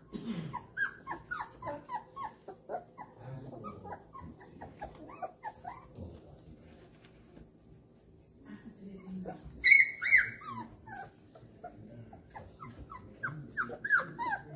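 Four-week-old golden retriever puppies crying in quick, short, high calls that fall in pitch. The calls ease off for a couple of seconds mid-way, and the loudest, shrillest squeal comes about ten seconds in, followed by more calls near the end.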